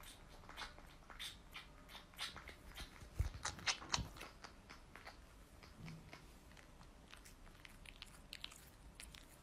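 A cat licking and nibbling at a person's ear close to the microphone: quiet, irregular wet clicks and smacks, with a few louder ones about three to four seconds in.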